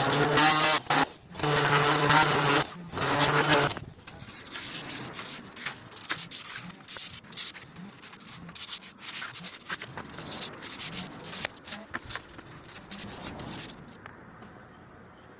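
Electric sander motor running in short bursts, cutting out and restarting twice before stopping about four seconds in. Then comes hand sanding of the wooden table, irregular rubbing and scraping strokes that die away near the end.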